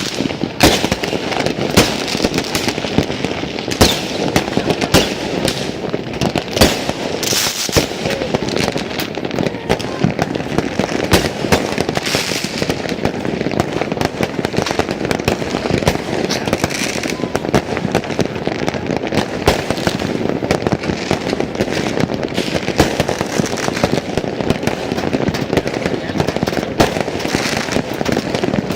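Many fireworks exploding at once: sharp bangs and pops at irregular intervals, often several a second, over a continuous din.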